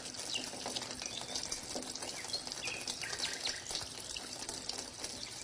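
Water pouring in a thin steady stream from a toy hand pump's spout, splashing into a plastic channel, with a few short bird chirps over it.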